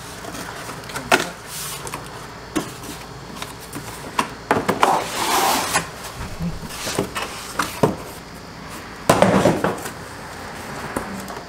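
Cardboard box and its packing being handled as a new AC condenser is unpacked: scattered knocks, with two longer rough scraping rustles, one around the middle and one near the end.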